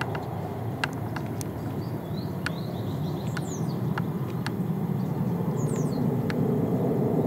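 Twin-engine jet airliner climbing out after takeoff, its engine noise a steady low rumble that grows a little louder in the last couple of seconds. Birds chirp with short, quick falling calls, and scattered sharp ticks sound.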